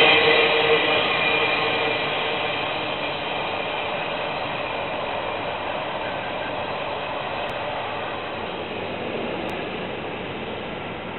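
Freight train cars rolling along the track, with steady wheel-on-rail noise fading away as the tail end of the train moves off.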